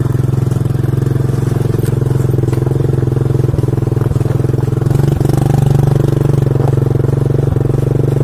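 A small engine running steadily with a fast, even pulse, and a few faint knocks over it.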